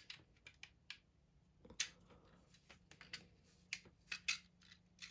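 Hard 3D-printed plastic magazine halves clicking and tapping against each other as they are fitted together by hand. Scattered faint clicks, the sharpest about two seconds in and just after four seconds.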